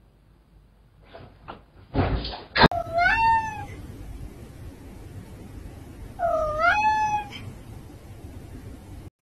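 A few light knocks and a short, loud rustling thump, then a domestic cat meows twice, a few seconds apart. Each meow is an odd, unusual-sounding call that starts low and bends up in pitch.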